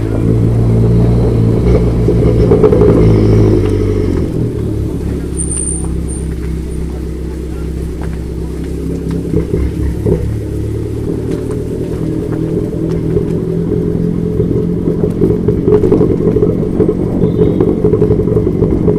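Fiat Punto's engine pulling under load up a steep climb, heard from a camera mounted on the outside of the car. The engine note drops about four seconds in, then grows louder again toward the end.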